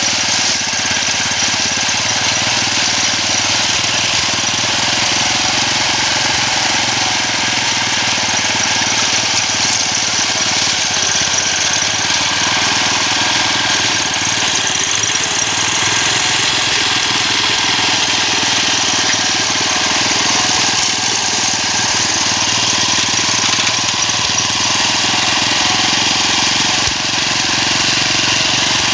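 Small engine of a homemade push grass-cutting machine running steadily.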